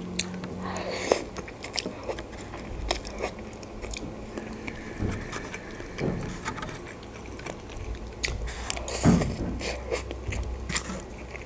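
Close-miked mouth sounds of eating Doshirak instant noodles: slurping and chewing with many wet clicks, loudest about nine seconds in.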